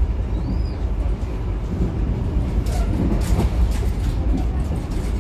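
Steady low rumble of a passenger train coach heard from inside the carriage, with a run of light clicks and rattles in the second half.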